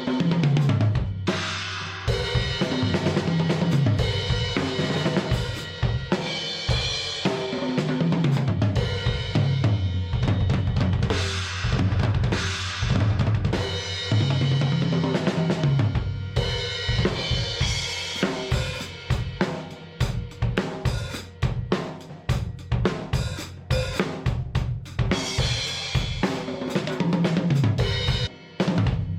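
PDP Concept Maple drum kit, fitted with new heads, played continuously: a fast run of strikes on the drums and cymbals.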